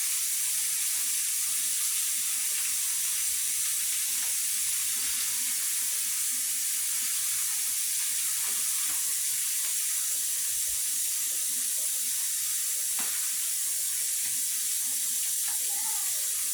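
Rice frying in a pan as it browns: a steady, high sizzle.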